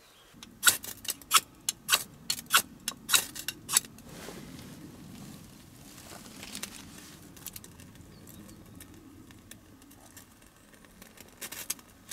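A knife scraping in about a dozen quick, sharp strokes over the first four seconds, in fire-lighting work with fatwood and a ferro rod. Softer rustling with scattered faint ticks follows.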